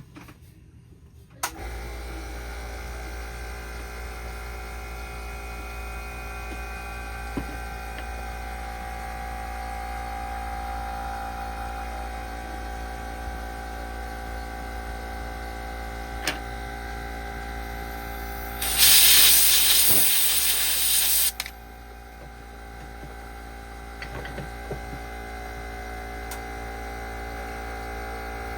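Steady electric hum of a running hot air rework station, switching on about a second and a half in. It is joined near the two-thirds mark by a loud hiss of blowing air that lasts about two and a half seconds.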